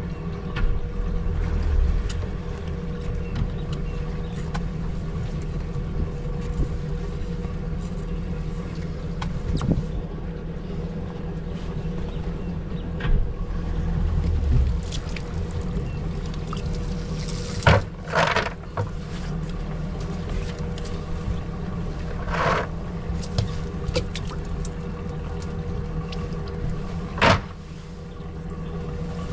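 Cast net being thrown from a boat and hauled back in, with short splashes and water running off the net, over a steady low rumble and hum. The sharpest splashes come a little past halfway, twice in quick succession, then once more and once near the end.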